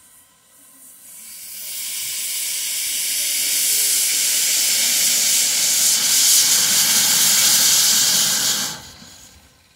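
Steam hissing loudly from the open cylinder drain cocks of a small narrow-gauge saddle-tank steam locomotive, building up over about a second, holding steady, then cutting off sharply near the end.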